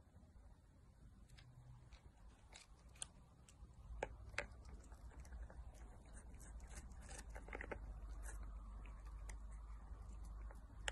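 A kitten biting and chewing on a small treat packet: faint, irregular crinkles and clicks, a few sharper ones around the middle, over a low rumble of handling.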